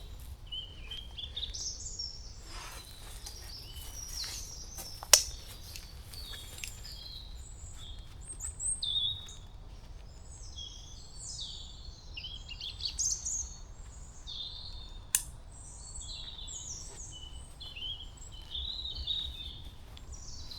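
Several woodland birds singing and chirping at once, short calls and trills overlapping throughout. Two sharp clicks stand out, about five seconds in and again about fifteen seconds in.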